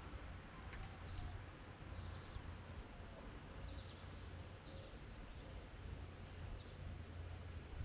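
Faint outdoor background: a steady low rumble with a small bird giving short, high chirps every second or two.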